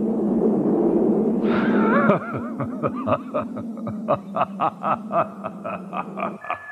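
A low rumble and hum for about two seconds, then a character laughing in a quick run of short 'ha' pulses, about four a second, that stops near the end.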